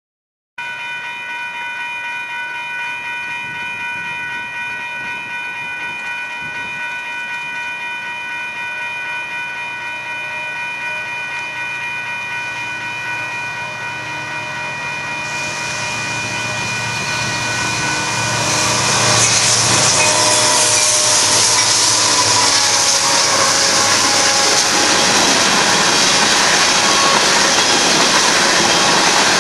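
Grade-crossing warning bell ringing steadily as a Union Pacific freight train approaches, its noise and a low locomotive drone building from about 15 seconds in. About 19 seconds in the train reaches the crossing, and its loaded covered hopper cars roll past loudly, wheels rumbling and clattering on the rails.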